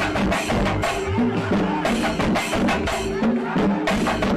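Background music with a steady percussion beat under a melody.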